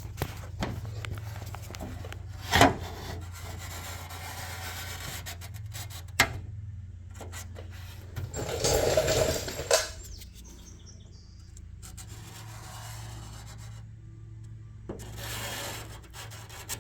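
A Sharpie marker rubbing and scraping as it is drawn along a steel hood patch panel to mark the cut line, with a couple of sharp knocks from the sheet metal being handled and a louder stretch of scraping partway through, over a steady low hum.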